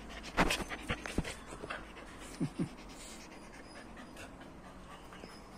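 Dog panting close by in quick breaths, loudest in the first second, with two short rising whines about two and a half seconds in.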